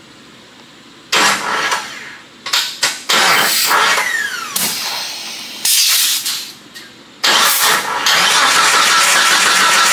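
Compressed air hissing from an air hose and leak-down tester as an engine cylinder is pressurised for a leak-down test. It comes in several bursts that start and stop, one with a brief falling whistle about four seconds in, then settles into a steady loud hiss.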